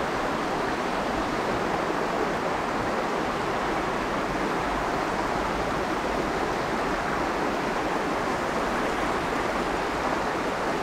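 Small river's current flowing steadily, an even wash of water noise with no breaks.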